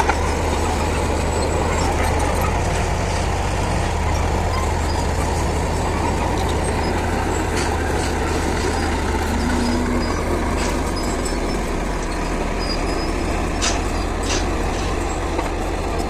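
Heavy earthmoving machine's engine running steadily with a low drone, with a few short clicks in the second half.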